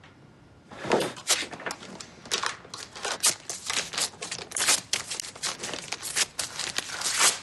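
Paper being crumpled and crushed by hand, a rapid, irregular crackling that starts just under a second in and keeps going.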